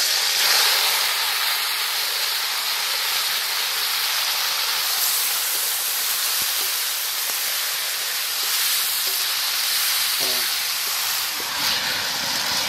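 Marinated duck meat with onions and spices sizzling in hot mustard oil in a large kadai (wok): a steady, even hiss of frying.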